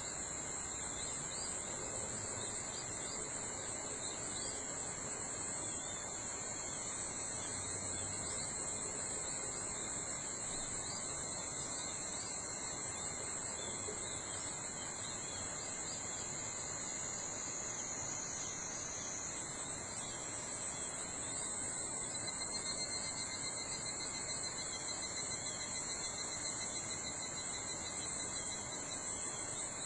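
Summer forest insects calling in a steady high-pitched chorus, several calls overlapping; a second, pulsing call joins about two-thirds of the way through.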